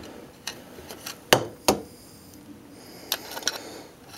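A few sharp, light clicks and taps of a small screwdriver and metal parts being handled, two louder clicks close together about a second and a half in, while brake fluid is dribbled around a motorcycle brake caliper's piston.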